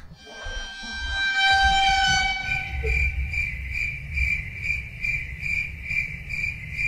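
Soundtrack sound effect: several held tones over a low rumble, joined about two seconds in by a high tone pulsing two to three times a second, cutting in suddenly after a moment of silence.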